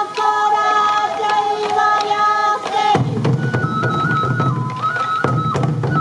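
Sansa odori festival music: taiko drum beats and a shinobue bamboo flute melody. For about the first three seconds a high voice sings held, stepping notes over it, then the flute carries the tune alone over the drumming.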